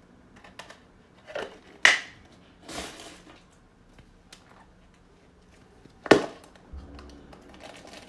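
Hard plastic clicking and knocking as the orange plastic toy capsule from a Kinder egg is handled and pried open: a few sharp clicks in the first three seconds and one loud snap about six seconds in.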